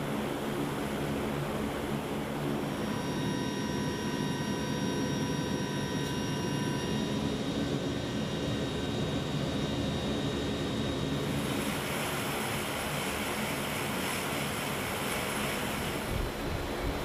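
Turboprop engines of a Lockheed Martin KC-130J Super Hercules running on the ground, a steady propeller and engine drone. About eleven seconds in it turns harsher, with more hiss.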